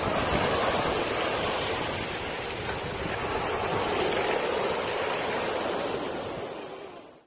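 Ocean surf washing up the shore, with wind rumbling on the microphone; it fades out near the end.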